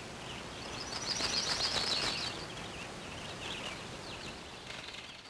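Birds chirping, with a louder run of quick high chirps from about one to two seconds in, over a steady background hiss.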